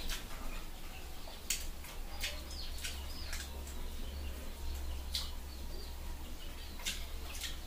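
Scattered short, sharp clicks and crackles from fingers picking apart fried fish on a banana leaf, with a few faint bird chirps and a low steady hum underneath.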